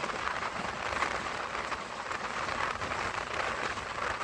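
Running noise of an Indian Railways passenger train at speed, heard from an open coach door: a steady rushing rattle of wheels on rails and passing air, with faint scattered clicks.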